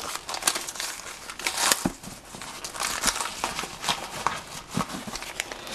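Plastic and paper packaging crinkling and rustling in irregular crackles as small wrapped items are handled and unwrapped.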